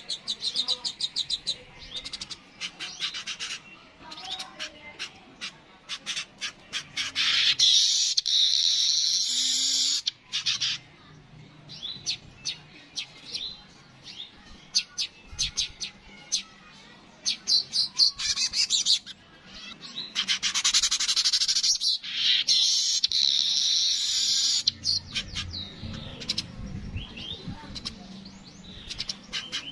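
Yellow-headed weaver (manyar) singing: rapid runs of dry ticking chatter that build into long, loud wheezy buzzing phrases, twice. Some low rumbling comes in near the end.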